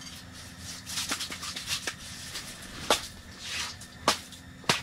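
Handling noises: several sharp knocks and clicks with a brief rustle, over a faint steady low hum.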